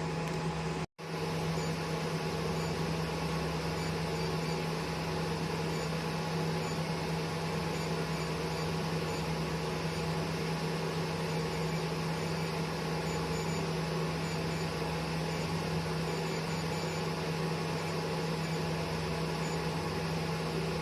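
Steady hum of a Freezewave Coolwave body-treatment machine running, an even fan-like noise over a low electrical tone. It drops out for an instant about a second in.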